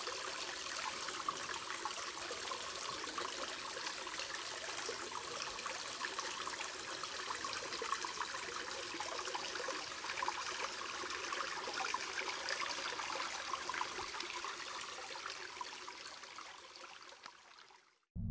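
Small woodland creek trickling steadily, fading out over the last few seconds.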